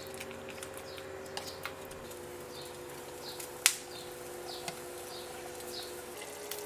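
Soft background music of held tones with short high chirps like birdsong. About halfway through there is a single sharp clink, a glass pan lid being set down on the pan.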